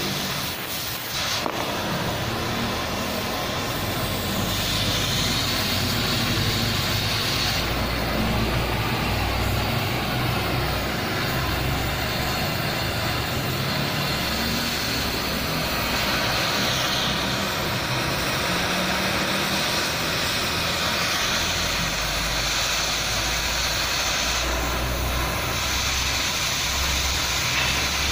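Gas cutting torch hissing steadily as its flame cuts through steel, over a low machine drone.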